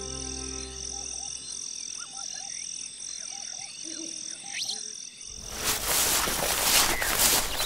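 Forest ambience of frogs croaking and a high insect chirp pulsing over and over. About five seconds in, a louder rustling of feet through grass and undergrowth takes over.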